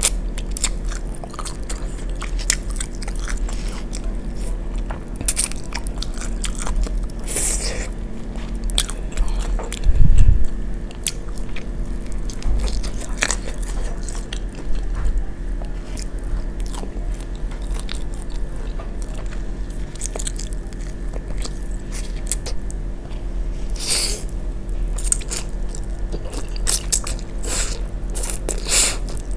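Close-miked eating sounds: biting into and chewing sauce-coated fried chicken wings, with many crisp crunches and wet mouth clicks. One loud dull thump comes about a third of the way through, and a mouthful of noodles is eaten near the end.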